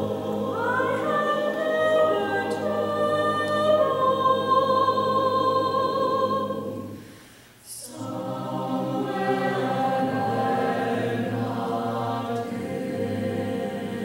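Mixed-voice chamber choir singing unaccompanied in sustained chords. About seven seconds in, the voices fade almost to nothing with a brief hiss, then re-enter with held chords.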